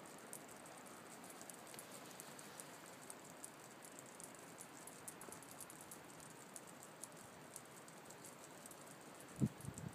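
Faint, dry, irregular clicking from bark beetles in infested piñon trees, several scattered clicks a second. The clicking is a sign of the trees' bark beetle infestation. A single low thump comes near the end.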